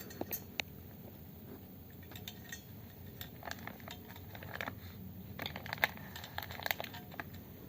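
A cat eating from a bowl: irregular crunching and small clicks, coming in clusters.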